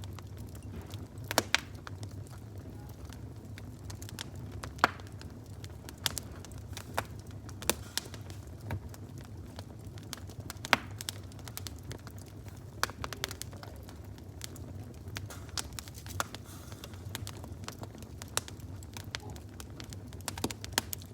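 Fire crackling: irregular sharp pops and snaps, a few every second or two, over a steady low rumble.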